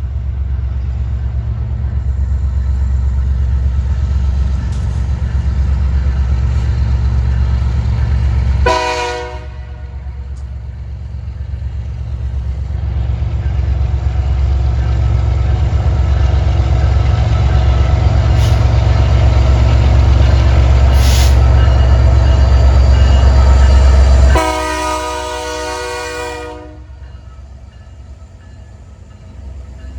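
Diesel freight locomotives running close by with a heavy low rumble, sounding a multi-chime air horn: a short blast about nine seconds in and a longer blast near the end, after which the rumble fades.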